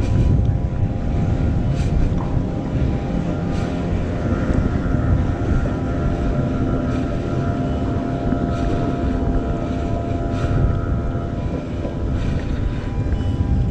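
An engine running steadily: a low rumble with a constant hum over it that does not change in pitch, with wind buffeting the microphone.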